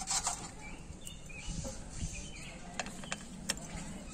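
A few light metallic clicks and taps as parts of a Greaves power tiller gearbox and its shift linkage are handled, the sharpest right at the start and another about three and a half seconds in, over steady background noise.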